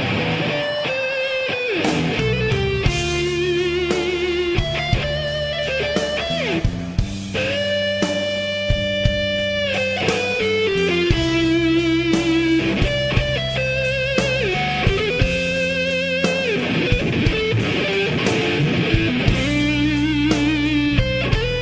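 Instrumental rock music: an electric lead guitar plays a melody of long held notes with vibrato and pitch bends over bass and a steady drum beat.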